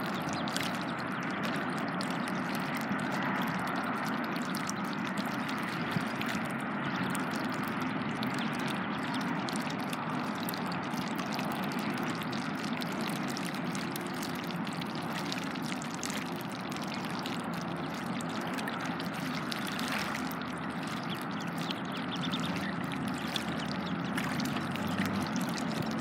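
Shallow water lapping and trickling steadily, stirred by ducklings dabbling for food.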